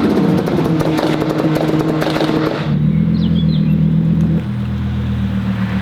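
Audi R8 V10 Performance's V10 engine through an aftermarket Capristo exhaust, running with rapid crackles and pops over the engine note. About two and a half seconds in, the crackling stops abruptly and a steady low engine note remains.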